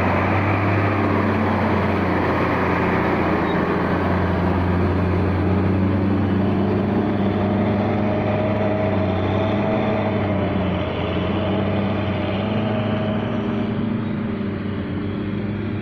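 Hitachi Zaxis 210 excavator's diesel engine running steadily under work, with a fainter higher tone coming and going in the middle.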